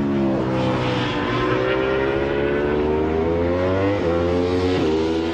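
Motorcycle engine pulling up through the gears: its note climbs steadily and then drops abruptly at a gear change about four seconds in, climbs again and shifts once more near the end.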